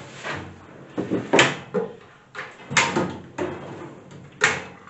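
Metal tool-cart parts being handled and set down: a string of separate clanks and knocks, about eight in a few seconds, with the loudest about a second and a half in and again near the end.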